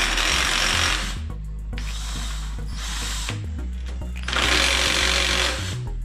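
Cordless power tool spinning out the big-end (connecting-rod) cap bolts on a Mazda MX-5 engine. It comes in two bursts of about a second each, one at the start and one about four seconds in, with a softer run between them.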